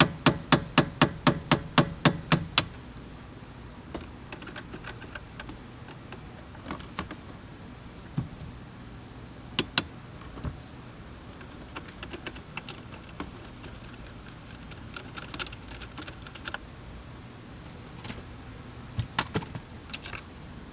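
A pointed punch being tapped with a hammer into the head of a steering-column security (shear-head) bolt: a fast run of sharp metal strikes, about five a second, for the first two and a half seconds. After that, scattered light clicks and taps as the punch is worked, with a couple of harder strikes near the middle and a short burst near the end.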